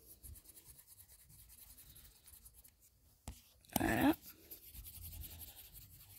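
Faint scratching and tapping of drawing strokes on a touchscreen in a drawing app, with a sharp click a little after three seconds.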